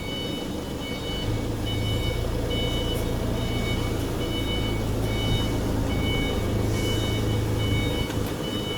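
An electric motor hums steadily, starting about a second in and stopping near the end, under a high electronic beep that repeats about one and a half times a second.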